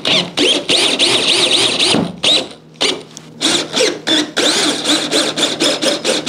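Cordless drill driving bolts down through the rack rail, threading them into deliberately undersized holes. Its motor whine rises and falls in several short trigger-pulled runs, with a brief lull about halfway through.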